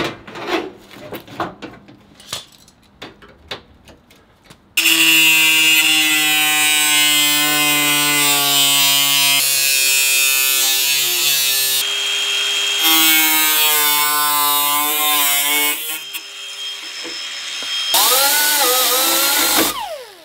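An angle grinder with a cutoff wheel cutting through the steel inner fender of a car. A few seconds of light handling clicks come first. Then the grinder starts abruptly and runs loud with a steady whine, its pitch shifting as the wheel bites, and it stops about 16 seconds in. A shorter burst with a wavering pitch comes near the end.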